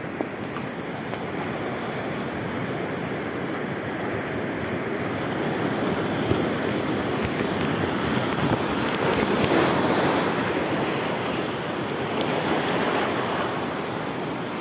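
Surf washing over a rocky reef shoreline in a steady hiss, with wind on the microphone. The wash swells louder about nine seconds in and then eases off.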